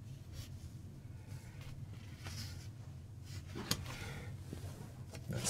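Faint rustling of a cardboard LP record jacket being handled and lifted, with one sharp tap a little past halfway, over a steady low hum.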